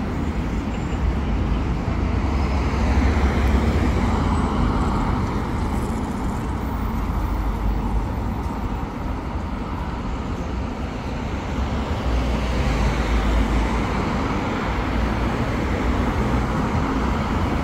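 Steady road traffic on a wide city avenue: cars and buses going by in a continuous rumble that swells a few seconds in and again about two-thirds of the way through as vehicles pass close.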